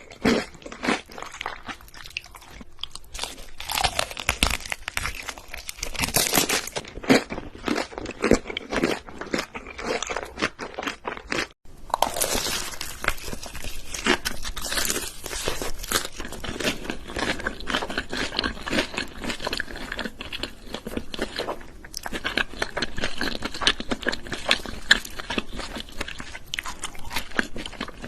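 Close-miked crunching and chewing of crispy food, a dense run of crackly bites and chews that drops out for an instant about halfway through.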